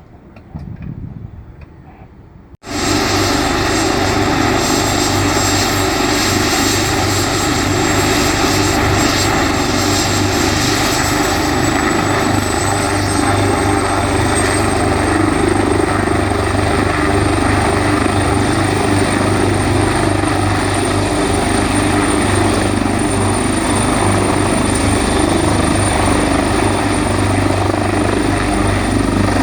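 Ambulance rescue helicopter (AgustaWestland AW139) running loud and steady, its twin turbines and rotor going at full noise, with a high turbine whine that rises slightly in pitch about halfway through as power comes up. The sound starts abruptly about two and a half seconds in, after a quieter stretch.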